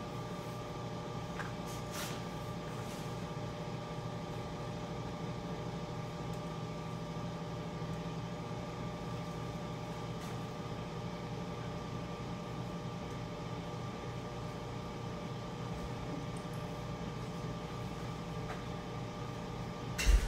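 A steady machine hum, like a fan or air-handling unit running, with a few faint ticks. Just before the end there is one sharp knock.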